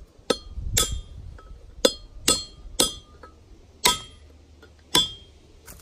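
Hammer striking a punch against a trailer hub's outer bearing race, knocking the race out from the back side: about eight sharp metallic clinks with a short ring, spaced irregularly about half a second to a second apart.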